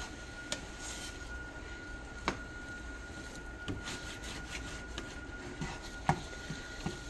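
Silicone spatula stirring and scraping eggs in a nonstick pan, with a few sharp taps against the pan, over a steady low hiss and a faint steady whine.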